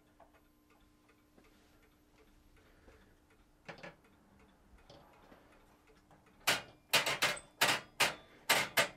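Faint steady high-pitched whine from a 1958 Zenith tube TV's horizontal output and high-voltage (flyback) section: the sign that horizontal deflection is running. One sharp click comes a little before the middle, and about nine quick sharp knocks come in the last two and a half seconds and are the loudest sounds.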